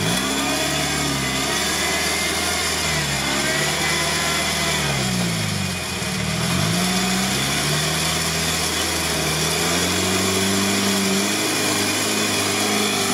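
Modified UAZ off-roader's engine revving up and down again and again as it works through a deep mud pit, then holding a steadier, higher note from about ten seconds in.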